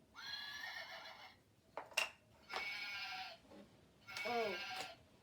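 Farm animal sound puzzle playing three short recorded animal calls through its small speaker, with a click or two near the second call.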